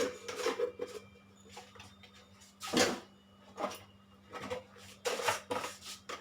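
Short clinks and knocks of a spoon against spice containers and a bowl as spices are spooned in, about half a dozen separate clatters with the loudest a little under halfway, over a faint steady hum.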